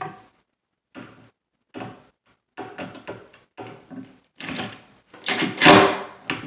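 A series of short wooden knocks and clatters as a cabinet door is handled on its hinges, louder and sharper near the end.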